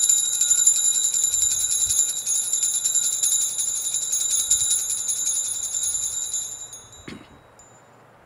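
Altar bells rung rapidly and continuously as the chalice is elevated at the consecration, a bright steady jingle that stops about six and a half seconds in. A soft knock follows, then near quiet.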